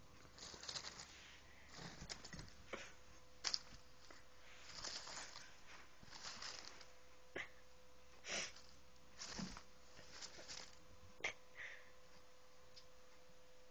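Kitten batting at and scrambling around a crinkly striped play tube: irregular rustles and scuffs, with a couple of sharp taps, over a faint steady hum.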